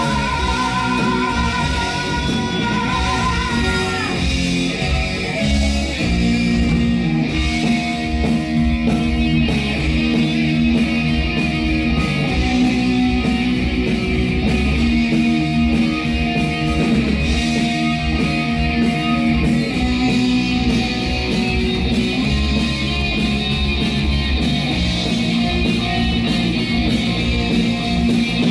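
Heavy metal band playing live: distorted electric guitars, bass and fast drumming. A held note with vibrato rings over the band for the first four seconds.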